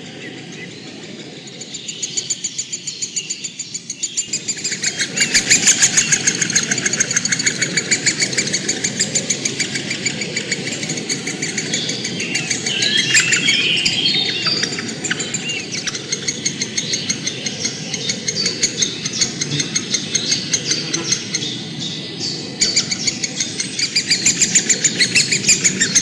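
Small birds chirping in a fast, continuous run of short repeated notes, several a second, louder from about five seconds in.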